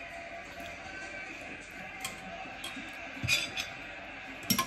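A spoon clinking and scraping on a dinner plate in a few short, light strikes, about two seconds in, twice around three seconds in, and again near the end, over a faint background.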